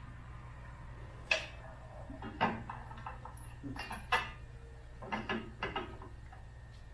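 Metal-on-metal clinks and clanks from the tractor's rear hitch hardware and hand tools being handled as the original hitch is taken off. There is a sharp clank about a second in, then scattered clinks, and a quick run of them a little after five seconds. A steady low hum sits underneath.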